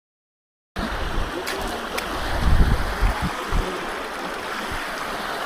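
Silent for a moment at the cut, then the steady rush of flowing stream water, with some low rumbling bumps.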